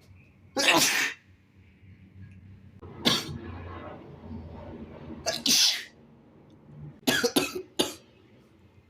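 A person sneezing repeatedly in hard, wet sneezes. There is one big sneeze just after the start and another about three seconds in. A double sneeze comes around five and a half seconds, then three quick short sneezes near the end.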